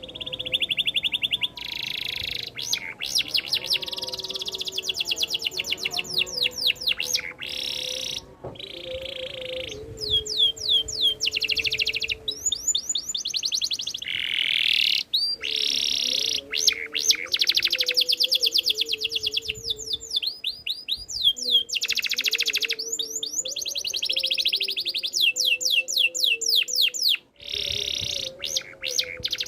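Domestic canary singing long phrases of rapid repeated notes and trills, switching every few seconds between fast rattling rolls and chirping runs, with short breaks between phrases. Fainter low wavering tones sound underneath throughout.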